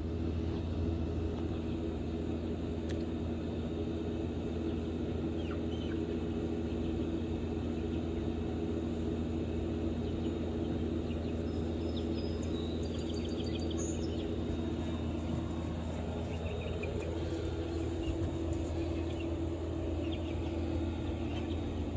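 A steady low mechanical hum, with small birds chirping faintly now and then over it, including a quick run of calls about halfway through.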